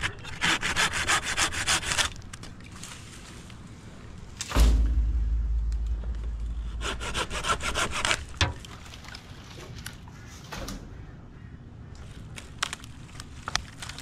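Curved pruning handsaw cutting through dead birch branches in quick back-and-forth strokes, in two runs. About four and a half seconds in there is a sudden loud low thump followed by a low rumble.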